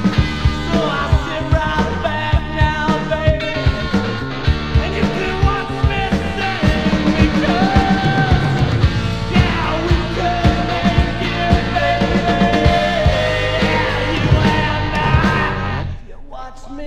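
Late-1980s rock band recording playing: drums, electric guitar, bass and a singing voice, with regular drum hits. Near the end the band drops out for a moment before starting again.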